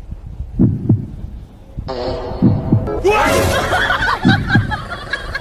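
Three low double thumps in a heartbeat rhythm, about two seconds apart, like a heartbeat sound effect. High, bending cries or voices join over them in the second half.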